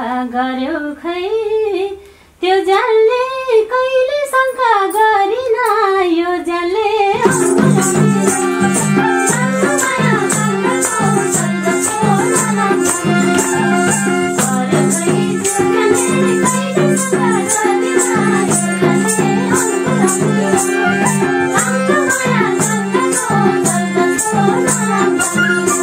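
Nepali dohori folk song: a woman sings a line unaccompanied, then about seven seconds in the band comes in with held harmonium chords and a hand shaker keeping a steady, quick beat.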